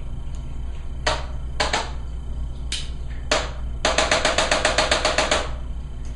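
Handheld chiropractic adjusting instrument clicking as it delivers thrusts: a few single sharp clicks, then a rapid even run of about fifteen clicks, roughly ten a second, lasting about a second and a half.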